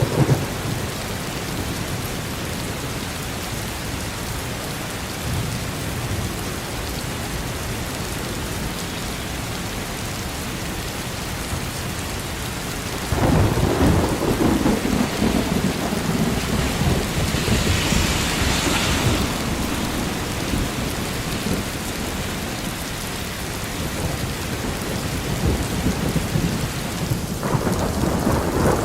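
Steady rain with thunder: a low rumble of thunder starts suddenly about halfway through and rolls on for several seconds, and another swells up near the end.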